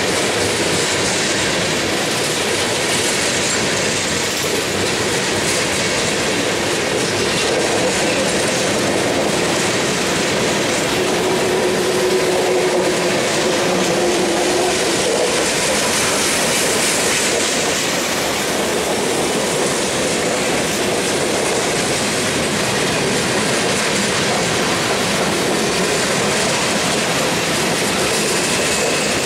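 Freight cars (tank cars, a centerbeam flatcar and boxcars) rolling past at a steady speed: a continuous rush of steel wheels on rail with clickety-clack over the rail joints. Faint wheel-squeal tones come and go, one lasting several seconds in the middle.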